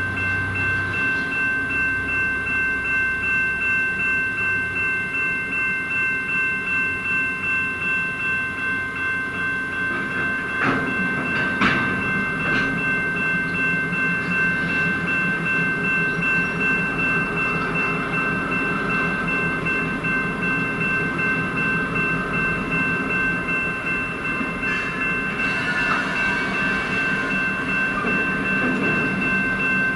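Train cars rolling past with a regular clacking over the rail joints and a few sharp metallic clanks about a third of the way in, over steady high-pitched tones.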